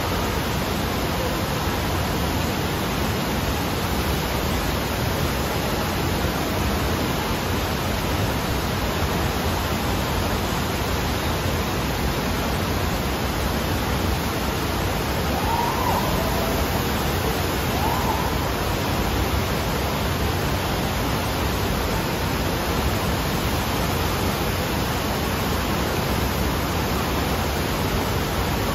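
Steady loud rush of water from an indoor sheet-wave surf machine, a thin sheet of pumped water shooting up the padded slope without let-up.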